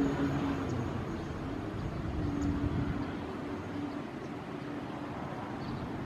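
Diesel locomotive approaching from a distance, a steady rumble with a faint pitched tone briefly about two seconds in.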